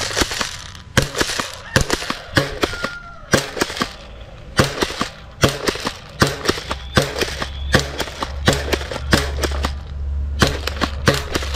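Toy pump-action shotgun blaster firing foam darts over and over, giving a run of sharp plastic clacks and pops about two or three a second as it is pumped and shot at plastic targets. A low steady hum comes in about halfway through.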